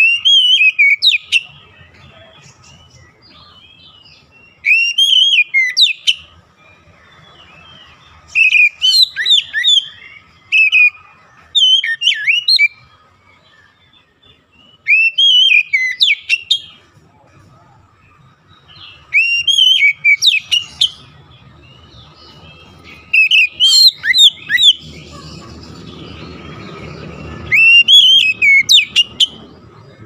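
Caged oriental magpie-robin singing: about eight loud bursts of fast, clear whistled notes that swoop up and down, each phrase a second or two long and repeated every three to four seconds. A faint steady hum runs underneath, and a low rumble rises in the background near the end.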